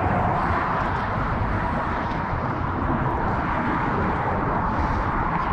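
Steady rumble of road traffic crossing the bridge, an even noise with no breaks.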